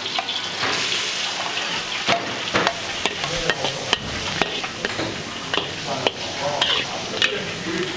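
Chopped garlic and chili sizzling in hot oil in a wok while a spatula stirs and scrapes through it, with repeated sharp clacks of the spatula against the pan. The sizzle swells about a second in.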